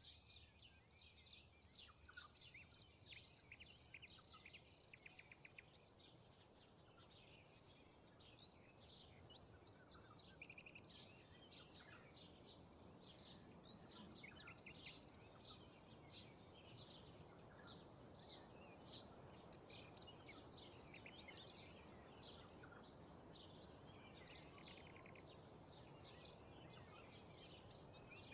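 Faint field ambience: many small birds chirping in short repeated calls over a soft, steady rush of wind through grass and trees, the wind building slightly about a third of the way in.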